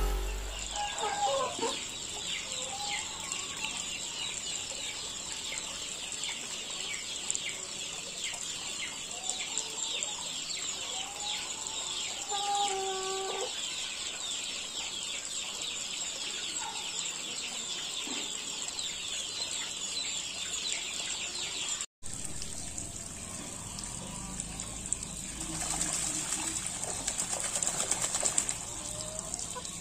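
Farmyard fowl giving scattered short calls over a steady high-pitched chirring in the background, with a brief rustling flurry near the end.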